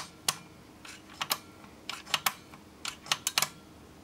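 Sharp, irregular clicking, several in quick pairs, from the vibration monitor's relay clicking in and out as its power drops in and out. The owner suspects a bad connection or a dried-up filter capacitor.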